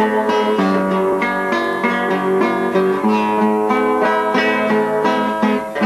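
Acoustic guitar played solo, an instrumental passage of chords with a moving bass line, each chord struck in a steady rhythm.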